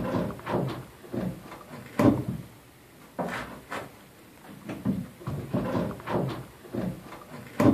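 An OSB arch being shifted by hand and pressed up against the wooden ceiling framing: irregular wooden knocks and scrapes, with a sharper knock about two seconds in and another near the end.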